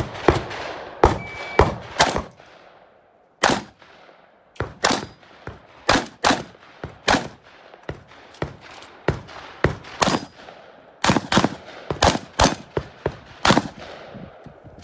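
Benelli M2 semi-automatic shotgun firing in rapid strings, often quick pairs of shots. The shots stop for about a second and a half starting about two seconds in, then resume steadily and end shortly before the close.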